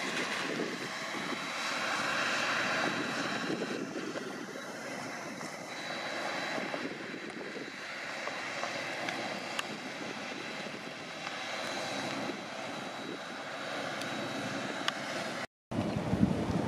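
Neoplan AN440LF-ETB electric trolleybus driving along, a steady drone of its electric drive and tyres. The sound drops out completely for a moment near the end.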